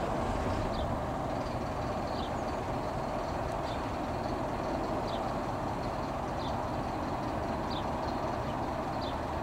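Steady jet engine rumble of a Boeing 787-9 Dreamliner flying low on approach with its landing gear down, heard from the ground as it moves away. A faint, short high chirp repeats about every second and a half.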